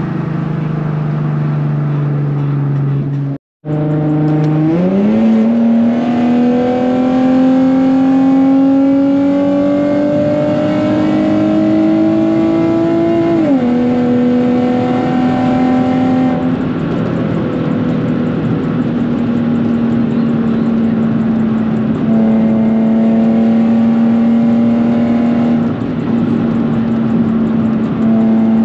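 Nissan 370Z's 3.7-litre V6 through a straight-piped exhaust, at full throttle: after a brief cut to silence about three seconds in, the engine note climbs sharply and keeps rising. It drops at an upshift about halfway through, then holds steady at high revs.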